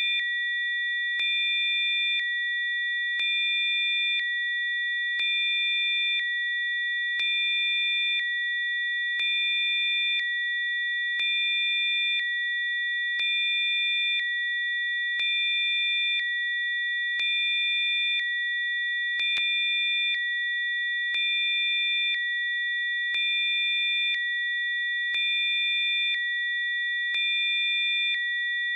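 Synthesized Rife frequency tones: several steady, high-pitched electronic sine tones held together. Fainter tones switch on and off about once a second, with a faint click at each switch.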